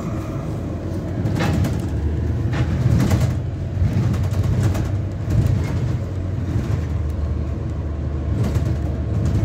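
Steady low rumble of a moving bus heard from inside, with occasional rattles.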